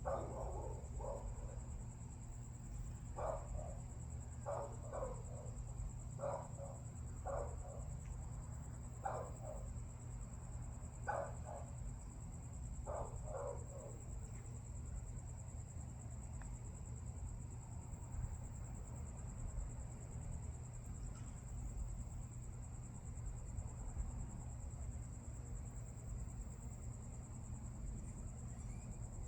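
Crickets chirring in a steady, high, continuous trill over a low background hum. Through the first half, short paired yapping calls repeat about once a second, then stop.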